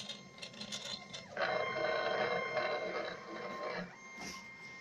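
Stepper motors of a home-built gantry CNC machine whining as they drive a pen across paper in stop-start moves. The longest and loudest move runs from about a second and a half in until nearly four seconds in.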